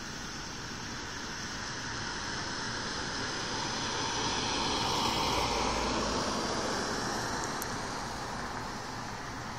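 A vehicle passing on the road: its road noise swells to a peak about halfway through, then fades away.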